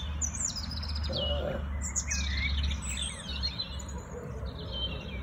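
Songbirds singing: quick high chirps and short falling whistles, phrase after phrase, over a low steady rumble.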